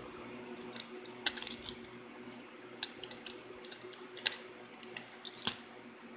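Small clicks and ticks of a screwdriver and fingers on a plastic Trackmaster toy engine as a screw on its underside is worked, with about four sharper clicks spaced a second or more apart.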